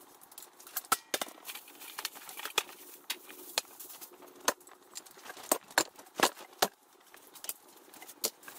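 Irregular clicks, knocks and clinks of small objects and wood pieces being picked up and set down on a wooden work bench, about one or two a second, a few much sharper than the rest.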